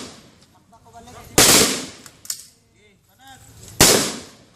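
Two rifle shots about two and a half seconds apart, each a sharp crack trailing off in a short echo: aimed single-shot fire during a three-round diagnostic group.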